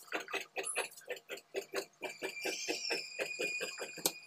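Large tailor's scissors cutting along cloth in a quick, even run of snips, about five or six a second.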